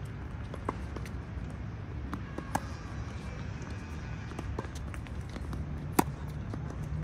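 Tennis racket striking the ball: a sharp pop about six seconds in, the loudest sound, with fainter pops of the ball being hit and bouncing earlier, and light shoe steps on the hard court, over a steady low rumble.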